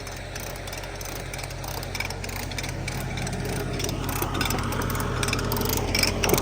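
Case 580B backhoe engine running under load as it tries to push the stuck machine, growing louder and harder-working about four seconds in.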